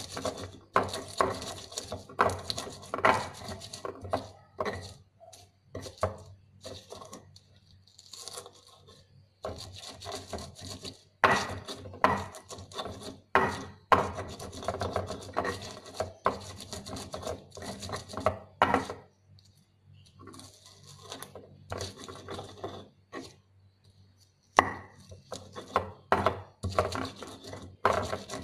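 Stone pestle grinding and pounding chili, shallots, garlic and salt in a stone cobek into a spice paste: repeated scraping and knocking of stone on stone, with a few brief pauses.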